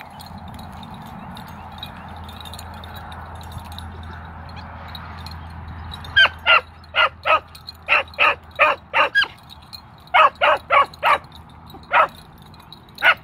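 Beagles giving tongue on a rabbit track: about fifteen short, high barks in quick clusters, starting about six seconds in. A low steady hum runs under the first half.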